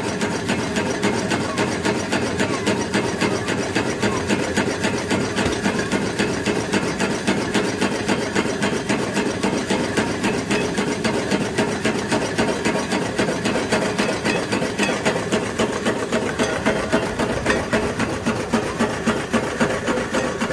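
Homemade Stirling engine running at about 440 rpm, making a fast, steady rhythmic clatter.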